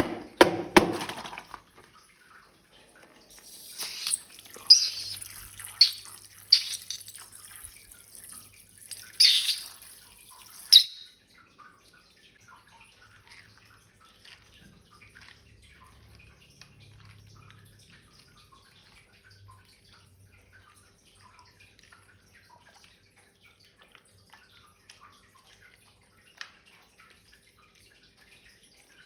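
Slime being squeezed out and worked by hand: wet squelching and dripping. The louder squelches and a hiss come in the first ten seconds or so, followed by faint, quiet crackling and sticking sounds.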